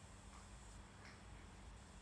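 Near silence: faint background hum and hiss.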